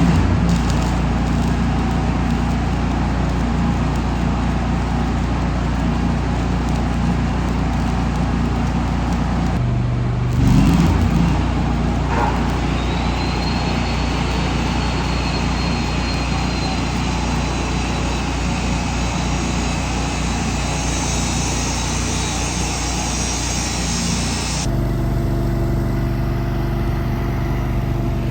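Welding arc crackling in two long runs, with a short break about ten seconds in, over a steady engine hum. The crackle stops about twenty-five seconds in and the engine keeps running.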